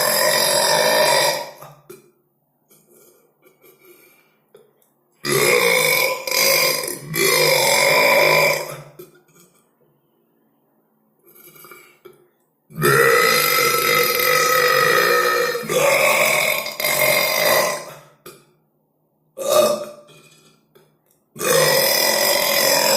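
Long, loud belches, about six in a row with short silent gaps between them, most drawn out for one to three seconds on a held pitch.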